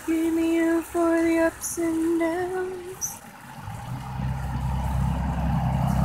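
A woman singing a slow, unaccompanied tune in a few long held notes for about three seconds. Then a low, steady hum like a motor comes in and grows louder toward the end.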